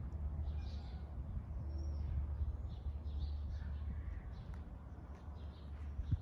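Several birds chirping and calling in short, scattered notes, over a steady low rumble that eases off past the midpoint.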